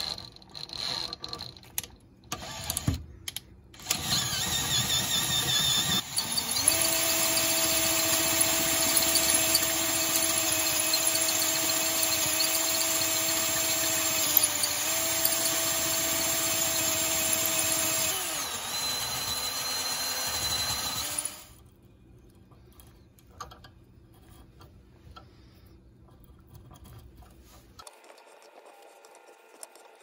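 Power drill boring out a metal hydraulic joystick adapter held in a vise, opening the hole up for tapping. After a few short starts, the drill runs steadily at one pitch for about seventeen seconds with a brief dip in pitch, then stops suddenly.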